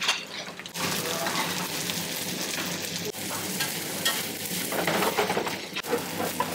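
Spaghetti all'assassina sizzling as it fries in a pan, with a few faint ticks of a utensil stirring it. The steady sizzle picks up under a second in, as the pasta crisps in the pan.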